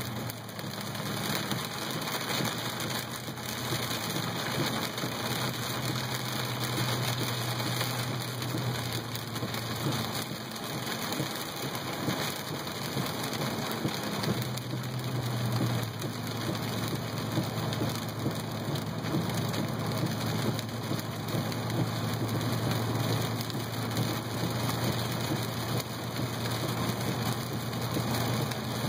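Heavy rain pattering steadily on a car, heard from inside the cabin, over a low hum from the moving car.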